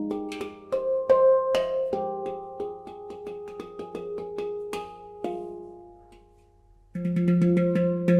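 Nitrided steel handpan tuned to F Pygmy being played: a run of quick, single struck notes that ring over one another and die away about six seconds in. About seven seconds in, a strong low note is struck and rings on.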